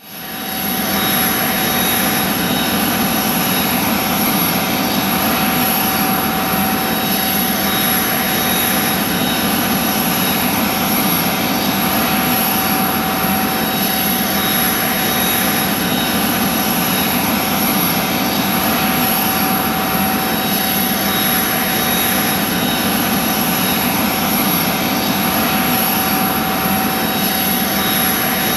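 Jet turbine running steadily at idle: a constant rush with a steady high whine over it, fading in at the very start.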